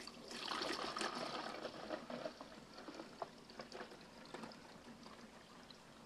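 Water pouring from the coffee carafe into the water reservoir of a Boscare 10-cup coffee maker. A steady splashing stream runs for about two seconds, then thins to a trickle and scattered drips.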